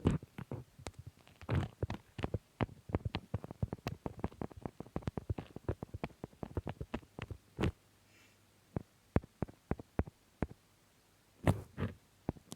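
Paper being handled and folded, a dense run of quick crinkles and taps that thins out after about eight seconds, with a few more near the end.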